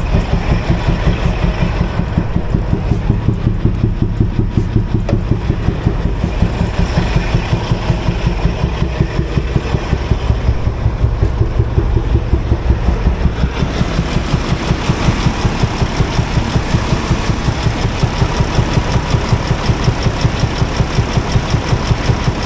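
Diesel engine of a semi-truck tractor idling with an even, rhythmic thump, about three beats a second, a fault the driver thinks has something to do with the air system. About halfway through, more high-pitched hiss joins the engine sound.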